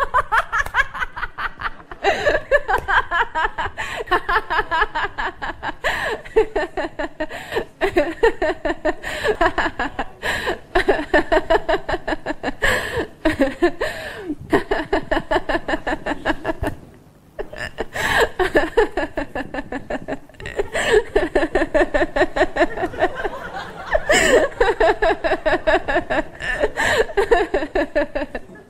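People laughing heartily: long runs of rapid ha-ha pulses that slide down in pitch, one outburst following another, with a short break a little past halfway.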